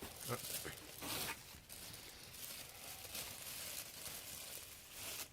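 Plastic packing bag rustling and crinkling faintly as it is handled and pulled at, with a slightly louder rustle about a second in.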